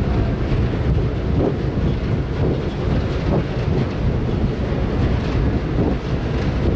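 Steady low rumble on the deck of a moving car ferry: wind buffeting the microphone, mixed with the ship's engine and water noise.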